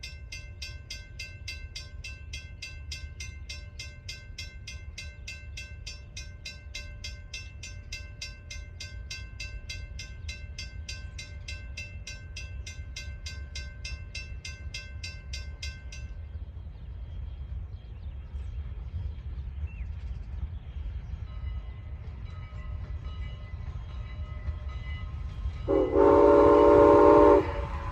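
A bell ringing rapidly, about four strokes a second, stops about sixteen seconds in, over a low steady rumble. Near the end, Strasburg Rail Road No. 89's steam whistle sounds one loud chord for about a second and a half.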